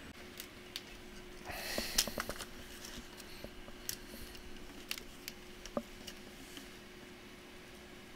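Light clicks and a brief rustle of small laptop parts being handled during reassembly of the motherboard and cooling fan, with the rustle about two seconds in.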